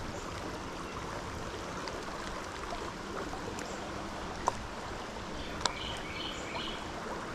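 Steady rush of a trout stream flowing, with two faint clicks in the second half.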